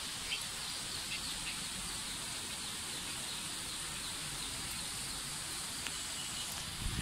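Steady hiss of rain falling, with a few faint bird chirps over it.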